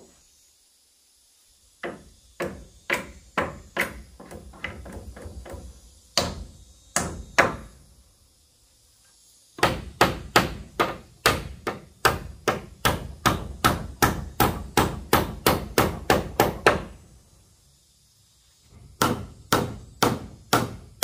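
Hammer driving nails into wooden planks in repeated runs of sharp blows with short pauses between. The longest run is a fast steady series of about three to four strikes a second.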